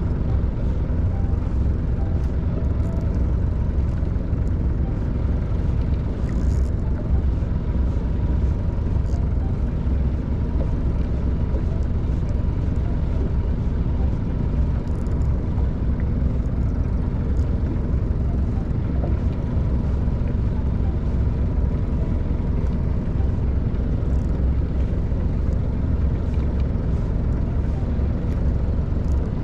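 Fishing boat's engine running steadily: a continuous low rumble with a faint steady hum above it.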